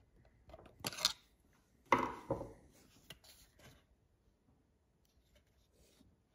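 A flathead screwdriver prying the rubber fuel line off the plastic fuel tank of a Stihl FS81 string trimmer: a few short scrapes and clicks, the loudest about two seconds in, then small clicks around three seconds.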